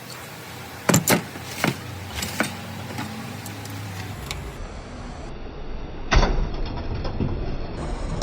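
Sharp metal knocks and clanks of parts being handled at a workbench: a quick cluster in the first few seconds and a louder knock about six seconds in, over a low machine hum that grows in the second half.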